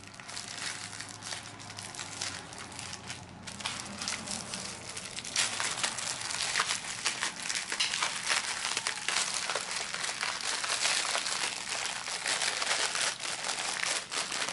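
Clear plastic wrapping crinkling and crackling as it is handled and pulled off a rolled bundle of small drill bags, louder from about five seconds in.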